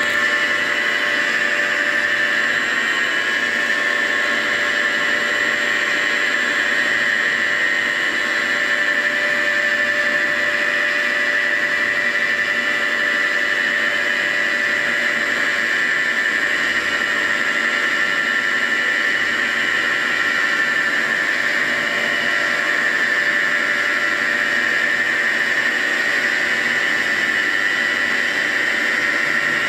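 CNC milling machine spindle running a boring bar, a loud, steady high-pitched whine, as the tool feeds slowly down into an engine cylinder bore toward the spigot-bore cut.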